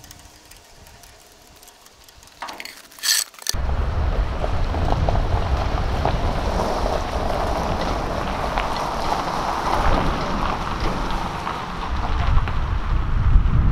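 A few sharp clicks about three seconds in, then a sudden switch to a steady, loud rush of wind buffeting the microphone, rumbling low, as a trailer is towed over a gravel driveway.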